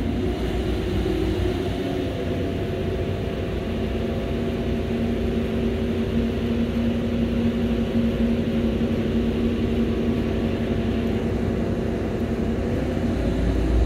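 Steady engine drone of an approaching container ship, a low hum made of several held tones over a low rumble; the strongest tone fades out near the end.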